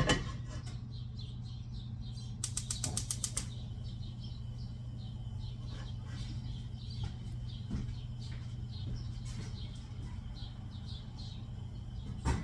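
A quick even run of about eight sharp clicks a couple of seconds in, over a steady low hum.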